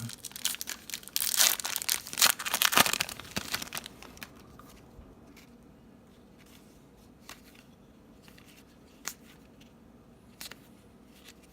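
Foil wrapper of a Topps Series 2 baseball card pack being torn open and crinkled for a few seconds. Then quieter, with a few faint clicks and shuffles as the cards are handled.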